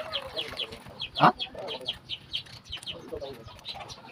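Chickens clucking, with a quick run of short high calls, about five a second, and one louder call about a second in.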